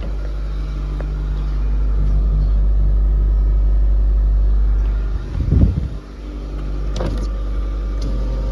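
Honda L13 1.3-litre four-cylinder engine idling steadily as it warms up, with a brief loud bump about five and a half seconds in.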